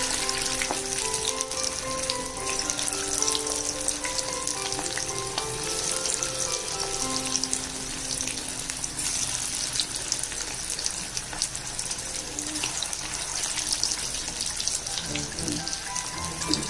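Batter-coated chicken lollipops deep-frying in hot oil: a steady, dense crackling sizzle.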